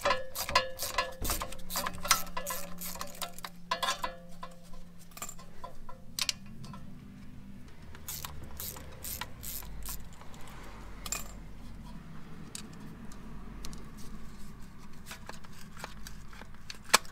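Hand ratchet wrench clicking while the bolts of an electric parking brake servo motor on a rear brake caliper are undone. The clicks come fast and close together for the first five seconds or so, then thin out to scattered metal clicks and knocks as the servo is worked loose.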